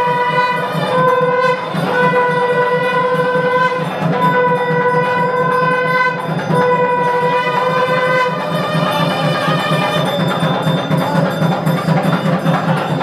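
Temple ritual music: a horn-like wind instrument sounds long held notes on one pitch, several times with short breaks, and stops about eight seconds in. A fast, steady drumbeat runs beneath it throughout.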